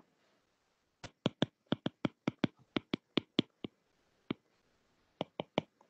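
Stylus tip tapping on a tablet's glass screen while handwriting. About fifteen quick, sharp clicks come in a run, then one lone click, then four more near the end.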